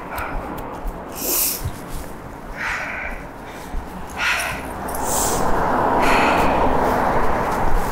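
A person's breathing: short breathy puffs, about one every second or so, over street background noise that swells about five seconds in.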